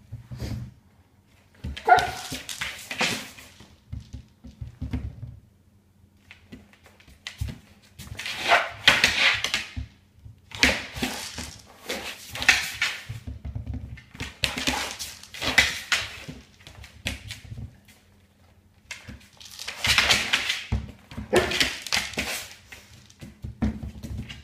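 A Rhodesian Ridgeback nosing and pushing a plastic Wobbler treat dispenser across a wooden floor: the toy knocks over and rocks on the boards, mixed with the dog's sniffing. The sounds come in bursts of a second or two with short pauses between them.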